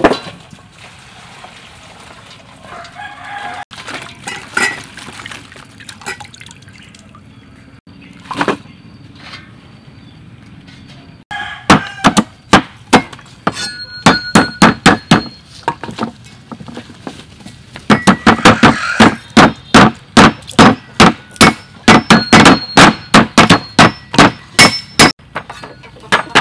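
A cleaver chopping lemongrass stalks on a wooden chopping block: sharp chops about three a second, in two runs with a short pause between them.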